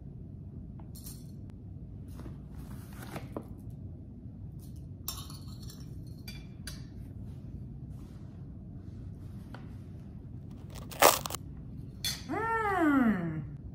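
Metal spoon clinking and scraping in a bowl of dried black soldier fly larvae, in scattered light taps, with a sharper clink near the end. Just after, a voice slides down in pitch.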